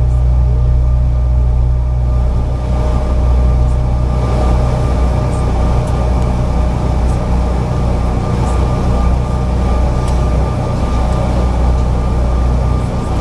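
Inside the cabin of a Bombardier CRJ-900 taxiing: the steady drone and whine of its rear-mounted GE CF34 turbofans at taxi power, with the rumble of rolling on pavement. The rumble gets rougher about three seconds in.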